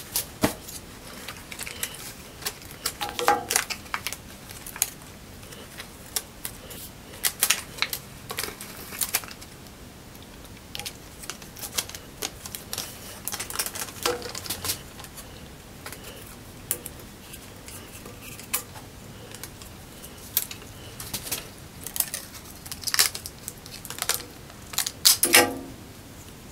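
Irregular clicks, taps and short rasps of a layered wooden block being handled on a metal bandsaw table while packing tape is pulled from its roll and wrapped around it. No saw motor is running.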